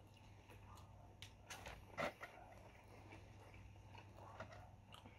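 Faint chewing and biting of pizza with its crust: soft, wet mouth clicks every so often, the loudest about two seconds in.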